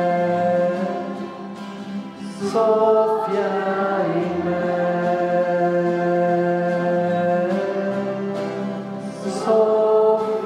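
Choir singing slow, sustained chords, the voices holding each chord and moving to a new one every two to three seconds.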